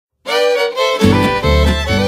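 Fiddles in harmony start a polka tune about a quarter second in. About a second in, a bass and rhythm accompaniment joins with a steady pulsing beat.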